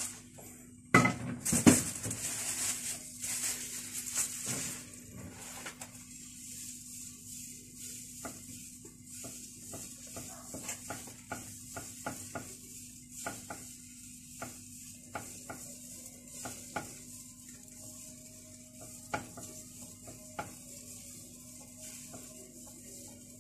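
Rustling and clatter as a plastic bag of batter and a pan are handled in the first few seconds, then a faint steady sizzle with scattered light clicks as kunafa batter is piped in thin threads into a hot non-stick frying pan on a gas burner.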